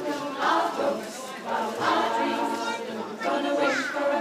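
Mixed community choir of women's and men's voices singing a cappella, several parts together.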